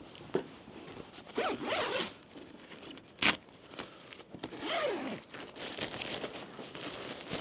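Tent door zipper being drawn open in two long pulls, with a sharp click between them.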